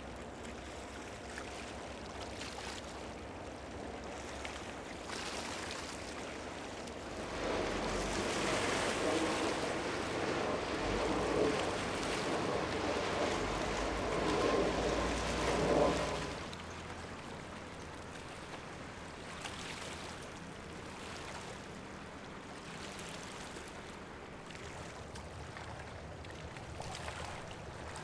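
River water washing and wind noise, with no clear engine tone. It swells louder for about eight seconds in the middle, then settles back.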